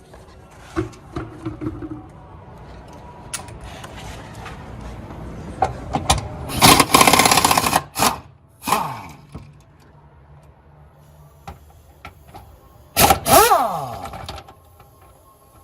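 Impact wrench run in two bursts, the first about six seconds in and the second near the end, its pitch falling away as it spins down after each burst. It is most likely working the nuts on the rear shock absorber mounts, with small clicks of tools and parts in between.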